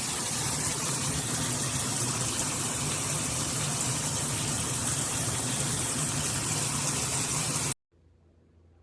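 Shower head spraying water steadily, a dense even hiss that cuts off abruptly near the end.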